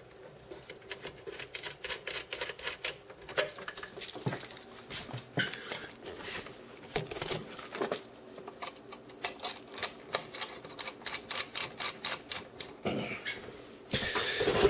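Many small, quick, irregular metallic clicks and scrapes as a PL-259 coax plug is fitted to the crystal radio's chassis-mount socket and its knurled coupling ring is threaded on by hand. The handling gets louder near the end.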